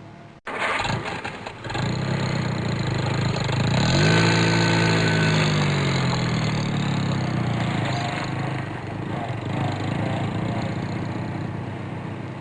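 Supercar engine starting: a brief crank, then it catches, revs once to a peak about four seconds in and drops back to a steady idle.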